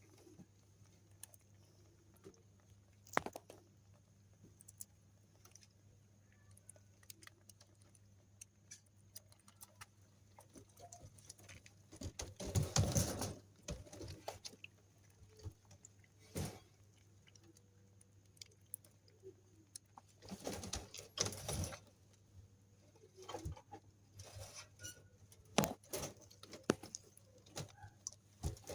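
A little rabbit sucking milk: scattered small clicks and smacks, with louder stretches about twelve and twenty-one seconds in.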